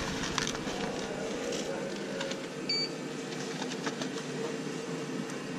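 Automatic ramen cooker and its surroundings: a steady electrical hum with light clicks and rustles of paper ramen trays being handled, and one short electronic beep about halfway through.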